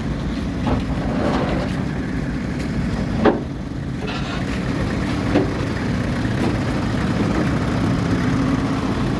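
Large diesel engine of heavy equipment running steadily, with a sharp knock about three seconds in and a fainter one a couple of seconds later.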